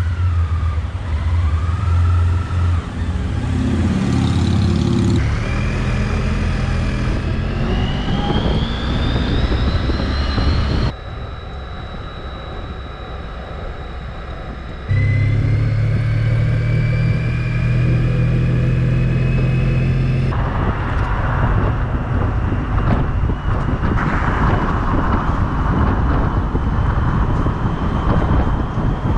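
Motorcycle engine, on a Honda ST sport-touring bike, pulling away and accelerating, its tone rising in pitch again and again as it goes up through the gears, across several cut-together riding clips. In the later part, wind noise on the microphone takes over.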